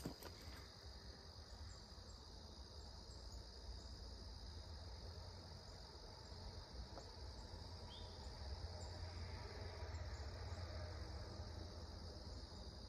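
Evening insect chorus, a steady high-pitched drone, over a faint low rumble.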